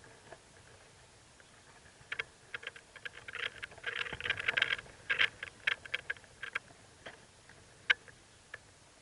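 A burst of rapid short clicks and chirps at a nest of four-day-old mockingbird nestlings, dense for a few seconds in the middle, then a few single clicks.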